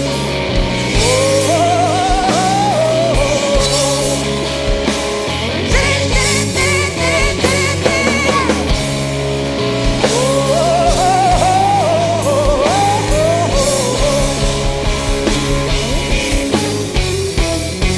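Slow blues-rock song playing: bass and drums under a lead melody of bent, wavering notes.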